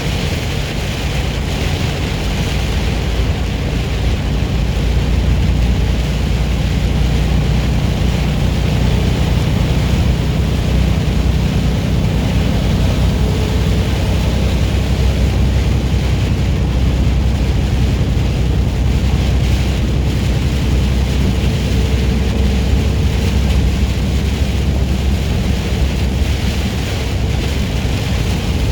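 Semi truck's diesel engine droning steadily at highway speed, heard from inside the cab, with a constant hiss of tyres on the wet road and rain on the truck.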